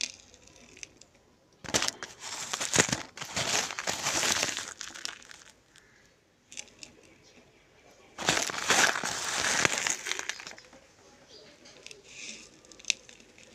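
Broken white slate pencil pieces and chalky powder crunching and crumbling as a hand squeezes and rubs them against a clay pot. It comes in two long bursts of gritty crunching, with scattered small clicks between them and a sharp click near the end.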